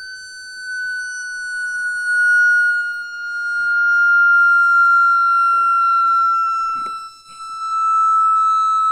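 High-pitched test tone from a vibration speaker driving a 22-gauge sheet-metal Chladni plate, its pitch gliding slowly downward as the frequency is swept. The tone swells and fades in loudness as the plate passes through resonances, dropping out briefly a little after seven seconds.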